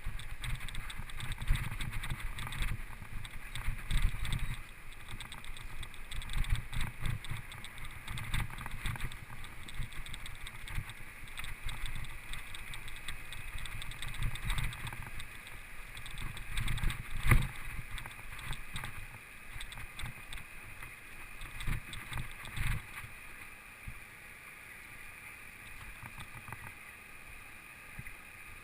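Mountain bike riding over a rough trail: an irregular rumble with knocks and rattles from the bike. One sharp knock comes about 17 seconds in, and the riding noise is quieter over the last few seconds.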